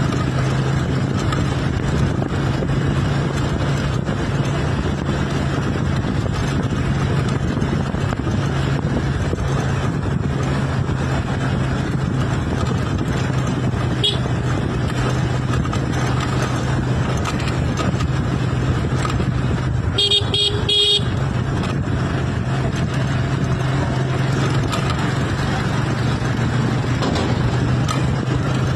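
A motor vehicle's engine running steadily with road noise. A vehicle horn sounds once, for about a second, near the two-thirds mark.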